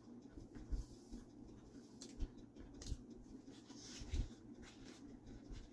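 Faint close-up chewing and mouth sounds from eating a soft pumpkin muffin, with scattered soft thumps and light scratchy handling of the muffin in its paper liner.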